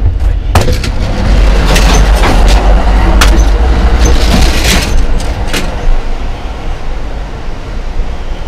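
Loud running noise of a moving Amtrak Superliner train heard in the passage between cars: a deep rumble with rattling and clattering, a sharp clack about half a second in, then a little quieter after about six seconds as the lounge car is entered.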